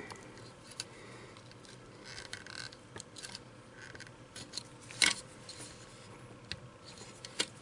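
A small screwdriver scraping and clicking against the stiff handguard retaining lever of an AK-47 as it is pried up. It makes light, scattered metal ticks, with one sharper click about five seconds in.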